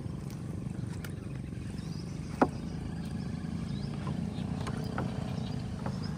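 Birds chirping faintly in the morning over a steady low rumble, with one sharp knock about two and a half seconds in.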